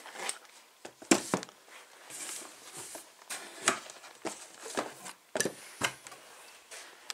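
Handling noise as a cardboard gift box and a small leather case are set down into a cardboard shipping box: soft rustling of cardboard broken by irregular knocks, the loudest about a second in and again about five and a half seconds in.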